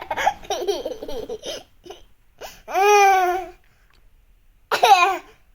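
A baby laughing and vocalising in choppy bursts, then a long high-pitched call about two and a half seconds in and a short one near the end.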